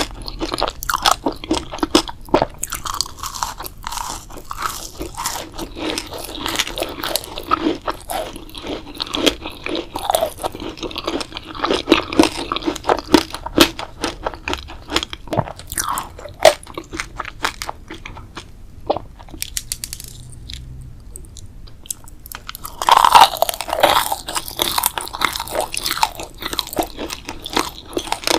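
Close-miked crunching and chewing of crisp food, many small crackles at a time. It eases into a quieter stretch, then a loud crunchy bite comes about 23 seconds in.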